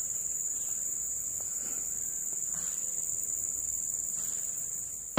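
Insects trilling steadily in a constant high-pitched chorus, with a second, faster pulsing trill above it.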